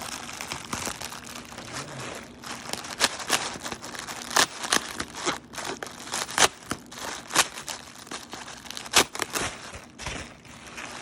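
Plastic packing wrap being crumpled, crinkled and torn off a boxed bass guitar, with irregular sharp crackles and rustling.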